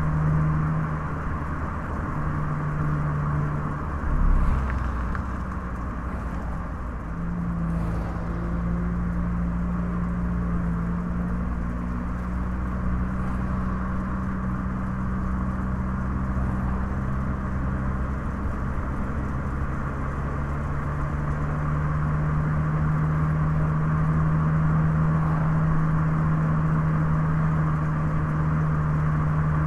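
Car driving along a road: steady engine hum and tyre and road noise, with the engine note shifting in pitch a few times. A brief thump comes about four seconds in.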